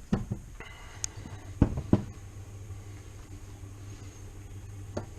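Metal tools and engine parts being handled on a workbench: a few sharp knocks, with a pair about two seconds in and one near the end, and a brief metallic ring early on, over a steady low hum.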